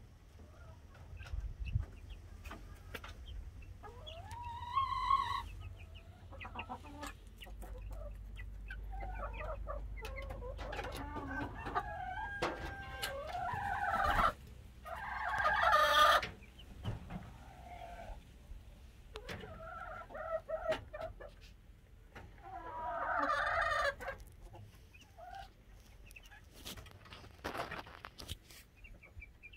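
Five-week-old chicks, mostly Leghorns, peeping and clucking, with several louder bursts of calls.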